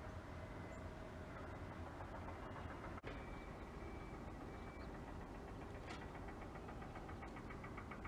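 Faint, steady low rumble of distant city traffic, broken by a momentary dropout about three seconds in. A quick run of faint high ticks or chirps comes near the end.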